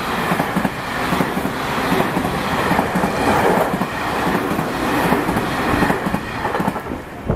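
A train passing at a level crossing: a loud, steady rumble and clatter of wheels on rail that eases off near the end.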